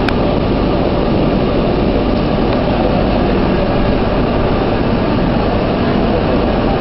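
A train at a station platform making a loud, steady, unchanging noise with a faint hum in it. A single click sounds at the very start.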